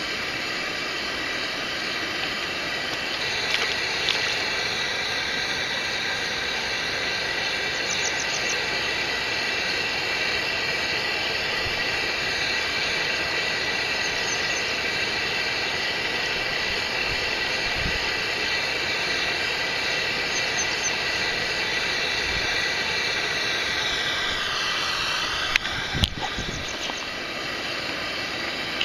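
Steady rushing water of a mountain stream, with a couple of sharp knocks about twenty-six seconds in.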